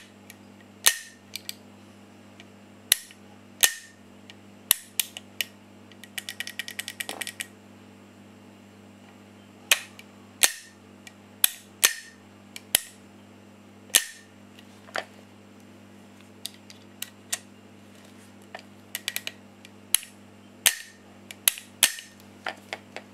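Hammer and trigger of a VFC HK417 gas-blowback airsoft rifle's trigger group worked by hand: sharp metallic snaps at irregular intervals as the hammer is released and recocked, with a quick run of small clicks about six seconds in.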